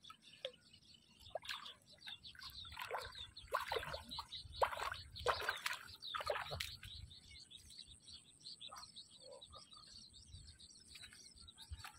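Bare feet wading and splashing through shallow water, a run of irregular splashes over a few seconds in the middle, with faint bird chirps.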